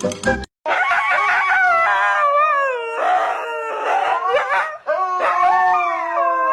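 A dog howling in long, wavering calls that slide up and down in pitch, with two short breaks.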